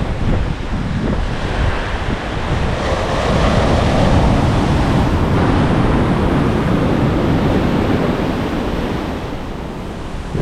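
Ocean surf breaking and washing up the beach, with wind buffeting the microphone. The rush swells a few seconds in and eases off toward the end.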